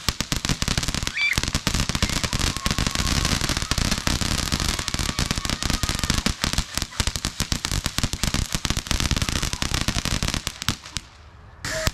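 Consumer ground fountain firework spraying sparks with a dense, rapid crackling. It drops away for under a second near the end, then crackles again.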